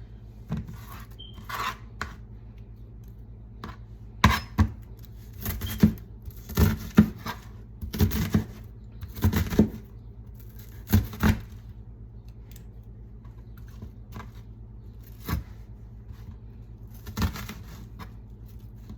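Kitchen knife cutting vegetables on a cutting board: irregular sharp knocks and scrapes, bunched together through the middle, with pauses between.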